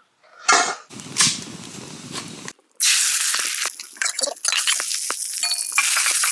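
Food sizzling loudly in a hot frying pan over a campfire, starting suddenly about three seconds in, with many sharp clicks through the sizzle. Before that come a few short, separate cooking noises.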